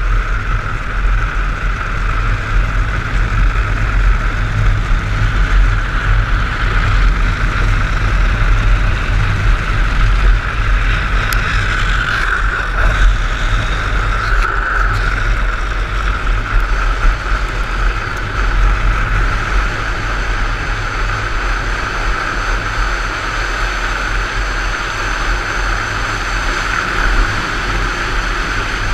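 Drift trike wheels rolling and sliding down asphalt at speed, a steady rough hiss with no let-up, with wind buffeting the camera microphone as a heavy low rumble.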